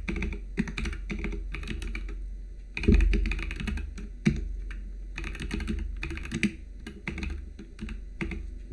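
Typing on a computer keyboard: irregular key clicks in quick runs, over a steady low hum.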